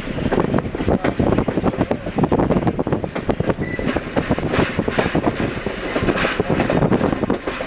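Railcar wheels rolling along the track, a continuous irregular clatter of clicks and knocks from a stainless-steel track inspection car in motion, mixed with road and wind noise from a vehicle pacing alongside.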